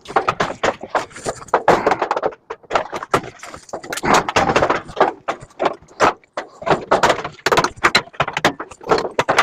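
Rapid, irregular clanks, knocks and rattles of metal parts and hand tools being handled while a scrap microwave is dismantled.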